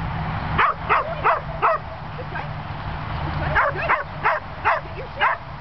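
Herding dog yipping in short, high-pitched barks, two quick runs of four or five barks each, over a steady low hum.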